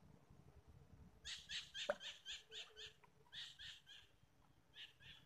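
An animal calling in a rapid series of short, high notes, about four a second, in three bursts, with one quick falling sweep about two seconds in.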